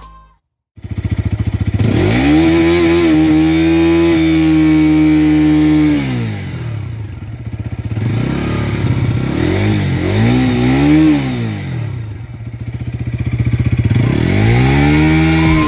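Bajaj Pulsar NS200 BS6's single-cylinder engine revving. It starts under a second in, climbs and holds high revs for about four seconds, then drops. It is blipped up and down several times, falls back, and climbs again near the end.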